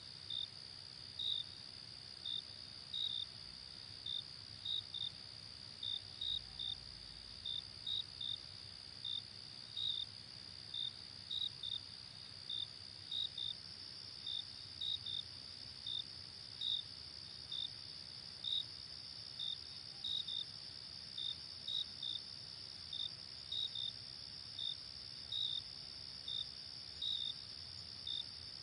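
Night insect chorus, like crickets: a steady high-pitched trill with short, high chirps one or two a second, at uneven intervals.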